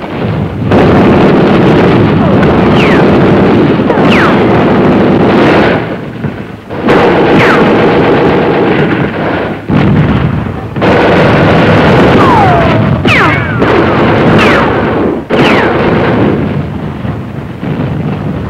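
Loud, continuous small-arms gunfire in long stretches broken by short pauses, with several short falling whistles over it.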